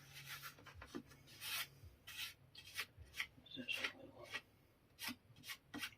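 Faint, scattered rubbing and scraping as a large cloth-bound book in its enclosure is handled: a dozen or so short strokes of material sliding against material.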